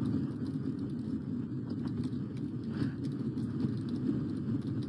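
Steady low room hum with faint light taps and scratches of a stylus handwriting on a tablet PC screen.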